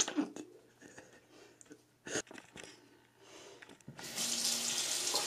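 Bathroom tap turned on, water running for about a second and a half near the end, then cut off abruptly. Before it, a few faint knocks and rustles.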